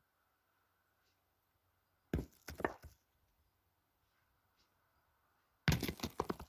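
Steel pétanque boules knocking and clattering: a short run of sharp knocks about two seconds in, then a louder, longer clatter near the end.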